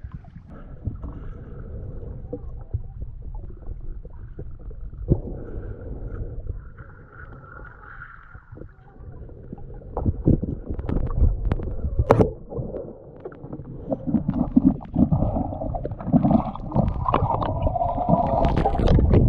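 Muffled water sounds as picked up by a camera at or under the lake surface: a low, rumbling swirl and gurgling with scattered sharp clicks and knocks, growing louder about halfway through.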